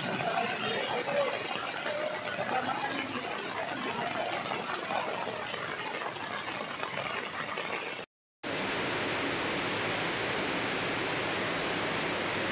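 Floodwater rushing past a fence gate in heavy rain, a steady rush of water. A little after eight seconds in, the sound cuts out for a moment, then gives way to a steadier, even rush of water.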